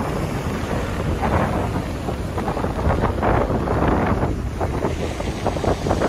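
Ocean surf breaking on a sandy beach, under a steady rumble of wind buffeting the microphone.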